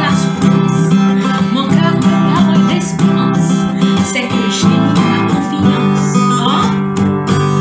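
Acoustic guitar strummed in a steady rhythm, accompanying a woman singing a hymn in Haitian Creole.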